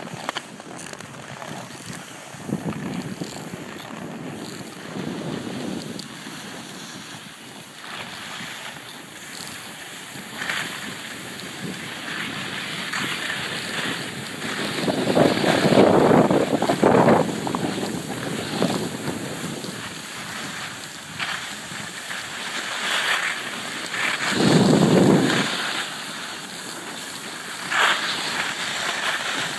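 Wind buffeting the microphone during a downhill ski run, over the steady hiss and scrape of skis sliding on packed snow. There are two louder gusts, one about halfway through and one shortly before the end.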